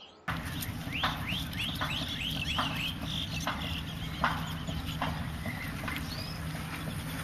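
Birds chirping: a quick run of short rising chirps about a second in, then single chirps roughly once a second, over a steady low background noise.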